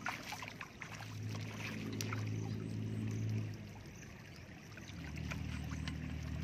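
Shallow muddy water splashing and trickling as a plastic basket scoops through it and feet wade, with many small splashes. A steady engine drone underneath fades out about three and a half seconds in and comes back lower about five seconds in.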